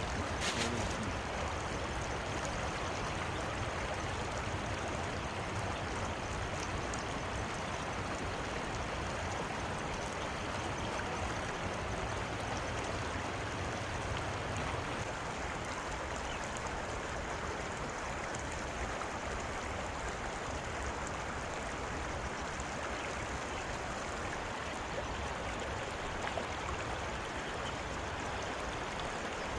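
Steady rush of a shallow river running over a riffle.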